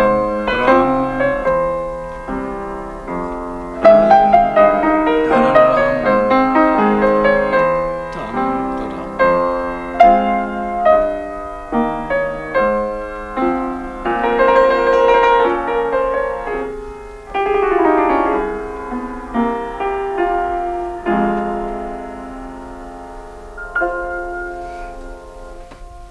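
Solo piano playing a classical piece, with a quick descending run about two-thirds through, then softening to a quiet close near the end.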